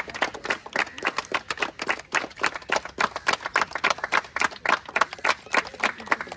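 A small crowd applauding, with many hand claps overlapping unevenly.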